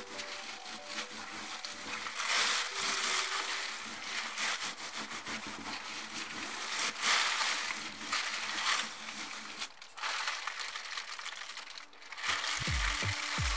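Thin plastic bag crinkling as gloved hands press and smooth it flat over a spray-painted board, in uneven swells as the hands move. It is peeled back near the end.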